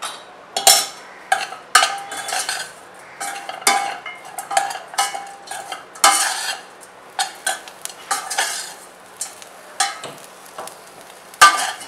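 Steel spoon stirring and tossing mini idlis in a stainless steel pot, scraping and clinking against the metal in quick, irregular strokes; the loudest knock comes near the end.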